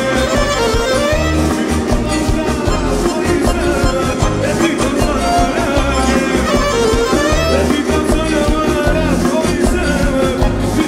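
Music with a singing voice and instruments over a pulsing bass beat.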